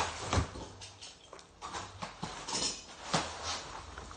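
Things being lifted out of a cardboard box: a few sharp knocks and bumps, right at the start and again about three seconds in, with rustling in between.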